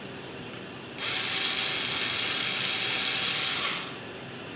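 Small cordless power driver running for about three seconds, with a mechanical whirring and ratcheting as it unscrews the nut that holds a fluorescent light ballast in place. It starts abruptly and stops short.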